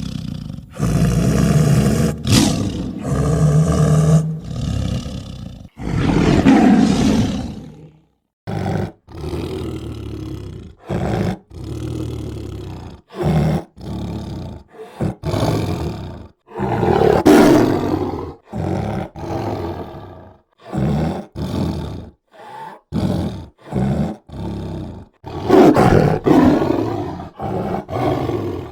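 Tiger roaring and growling in a string of edited sound-effect takes: a few long, loud roars spread through, with many short growls between them, each cut off abruptly.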